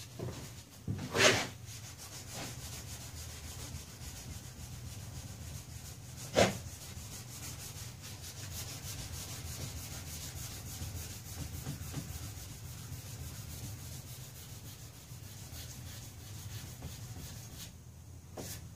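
Steady hand rubbing and scrubbing at the golf cart's fender and plastic-sheeted tire, with two sharp knocks, one about a second in and one about six seconds in.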